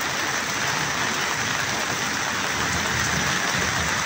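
Steady hiss of heavy rain pouring down, mixed with the rush of fast-flowing floodwater.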